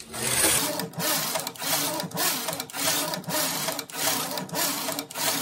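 Electronic knitting machine carriage pushed back and forth across the needle bed, knitting rows of single-bed two-colour jacquard. It makes a continuous rattling slide with a brief break at each turn, nearly two passes a second.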